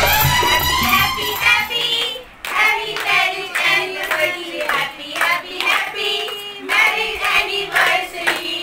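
A small group of people singing together and clapping in time, about two claps a second, taking over from recorded music that ends about two seconds in.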